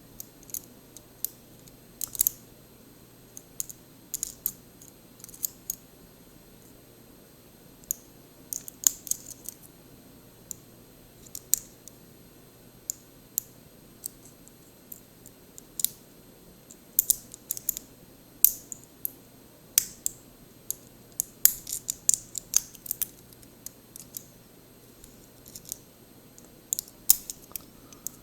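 Irregular small metallic clicks and scrapes, some in quick clusters, from a thin shim being worked into the cylinder of a DOM IX10 dimple lock.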